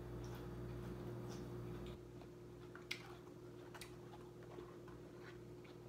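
A few faint, scattered clicks from eating with a fork, the loudest about three seconds in, over a steady low hum that drops a little about two seconds in.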